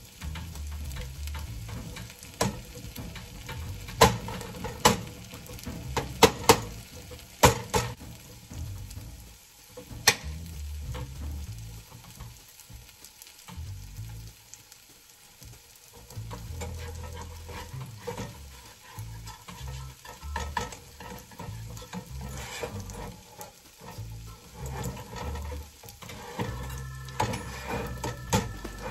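Food frying and sizzling in a pan while a cooking utensil stirs and scrapes it, with sharp knocks of the utensil against the pan, most frequent in the first ten seconds.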